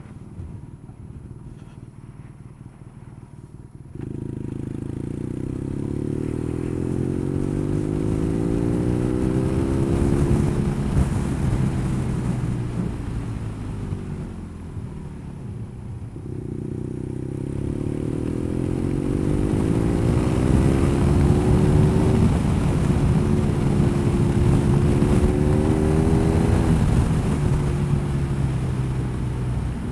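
Motorcycle engine, low at first, then pulling away about four seconds in, its pitch climbing with each gear. It eases off for a few seconds in the middle, then accelerates again, with wind noise rising as the bike gathers speed.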